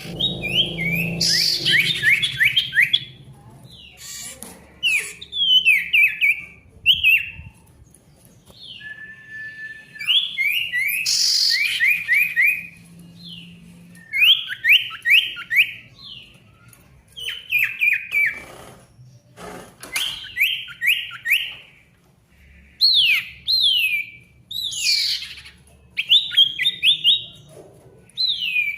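A sirtu songbird singing loudly and persistently: bursts of four to six quick, high, downward-slurred whistled notes, repeated phrase after phrase with short pauses between.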